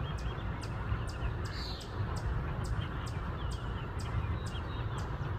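Small birds chirping softly over a steady low rumble and hiss of outdoor ambience, with a regular high ticking about two to three times a second.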